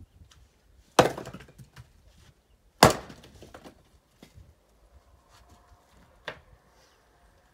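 Axe splitting firewood on a chopping block: two loud strikes about two seconds apart, then a lighter wooden knock a few seconds later.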